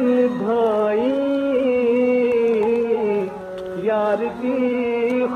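Background vocal music: a single voice singing long, held notes that waver and bend.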